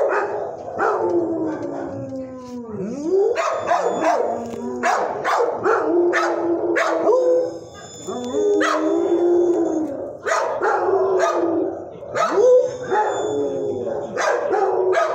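Shelter dog howling: long wavering howls that slide up and down in pitch, a lonely dog crying for attention at a visitor's presence, mixed with many sharp barks.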